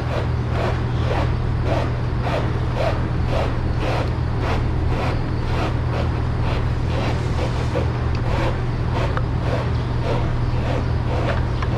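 Dairy barn machinery: a steady low hum with a regular hissing pulse about twice a second.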